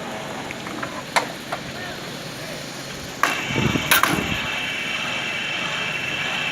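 A click, then about three seconds in a machine starts up with a knock and settles into a steady high whine, with a few more knocks and a low rumble as it starts.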